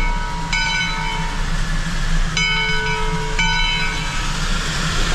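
Three-truck Shay geared steam locomotive, the 1928 Lima-built No. 10, rolling slowly past at close range over a steady low rumble, with its bell ringing about once a second.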